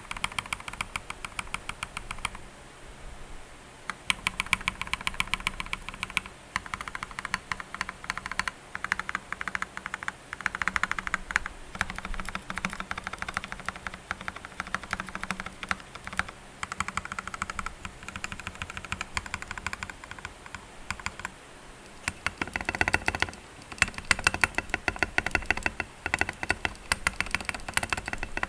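Typing on an Akko World Tour Tokyo R1 mechanical keyboard, a steady run of keystroke clacks. The switches and stabilizers are partly lubed, and the case has foam and tape mods. There is a short lull about two seconds in, and faster, louder bursts of typing near the end.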